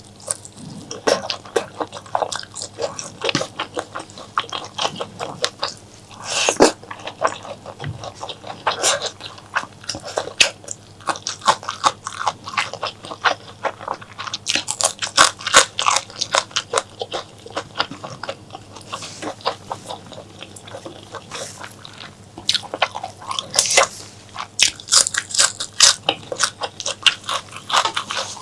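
Close-miked wet chewing and biting of spicy mutton and honeycomb-tripe curry: a dense, irregular run of smacking mouth clicks.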